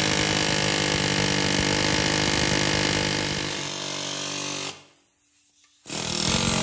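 Pneumatic air tool run hard down a cylinder bore of a 1969 Mopar 440 V8 block, breaking up the seized number 4 piston. It runs steadily, slowing a little near the end of the run, cuts off after about four and a half seconds, then gives a second short burst of about a second near the end.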